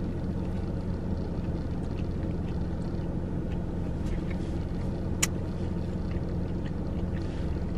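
Steady low hum of a parked car's idling engine and cabin fan, heard from inside the car, with faint chewing ticks and one sharp click about five seconds in.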